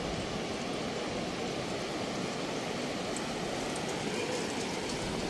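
Steady, even rush of sea surf washing onto a flat sandy beach.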